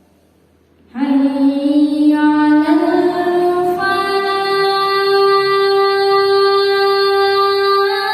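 A child's voice chanting one long, drawn-out phrase of the Islamic call to prayer (adzan). It enters about a second in, climbs in pitch over the next two seconds, then holds one steady note.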